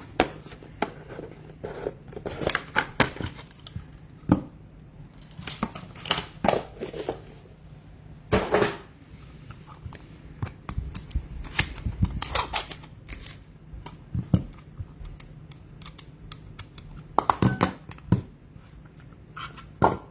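A trading card box and its packs being opened and handled: irregular crinkling, tearing of wrappers and sharp clicks and taps of cards and cardboard. A faint steady low hum runs underneath.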